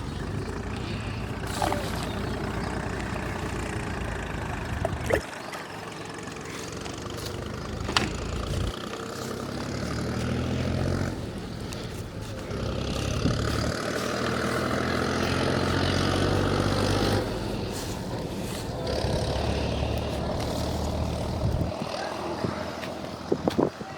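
A motor running steadily, its sound changing abruptly several times.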